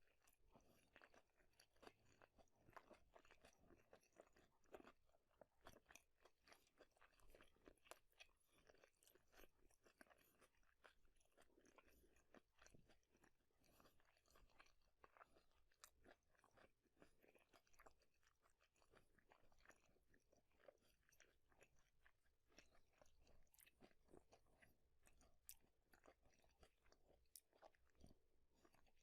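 Faint, close-miked chewing of food, with many irregular crunchy crackles.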